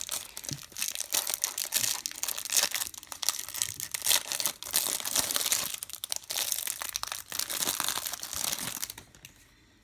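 Plastic wrapper of a trading-card pack crinkling and crackling as it is handled and opened; it stops about nine seconds in.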